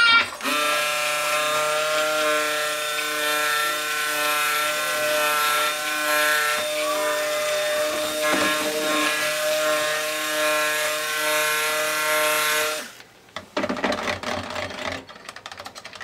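Handheld immersion (stick) blender running steadily in cold-process soap batter, a constant motor whine. It cuts off about 13 seconds in, followed by a brief patch of knocking and scraping against the bowl.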